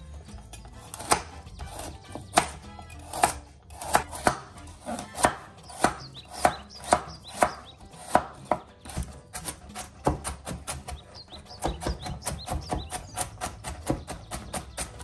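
Chef's knife chopping raw carrots on a bamboo cutting board: crisp knocks as the blade cuts through and strikes the wood. The cuts come at a slow, even pace at first, then turn into quicker, lighter chopping about nine seconds in as the pieces are diced.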